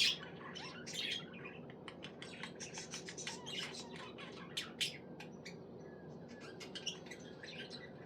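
Budgerigar chirping in a quick, busy run of short high chirps, with a sharp one at the start and louder ones about a second in and near the middle, over a faint steady low hum.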